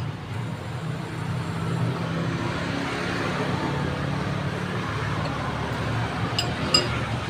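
Road traffic: a passing motor vehicle's engine and tyres, with two sharp clicks near the end.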